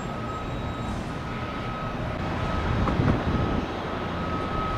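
Jet airliner engines at a distance: a steady rumble with a thin, steady high whine over it.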